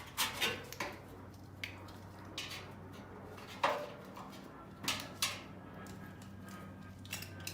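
Small metal parts clinking and knocking as someone sorts through a box of metal mounting brackets, with irregular clicks every half second to a second, over a steady low hum.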